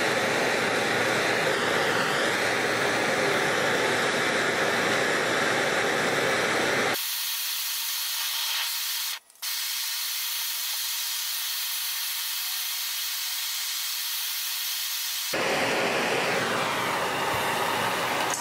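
Handheld gas torch flame hissing steadily. About 7 s in the hiss turns thinner and higher, with a brief dropout about 9 s in, and it comes back fuller near the end.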